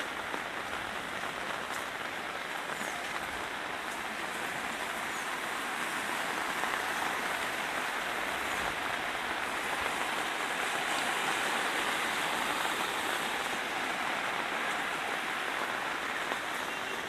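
A monsoon-swollen river in flood, muddy water rushing and churning: a steady rush of water that grows a little louder around the middle.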